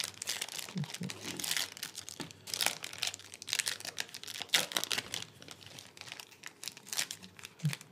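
Foil trading-card pack wrappers being torn open and crinkled by hand, two packs at once, in an irregular run of crackles and short rips.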